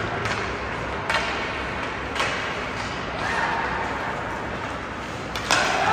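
Ice hockey play in an arena: a few sharp clacks of stick and puck, the first two about a second apart and another near the end, over steady rink noise with distant shouting.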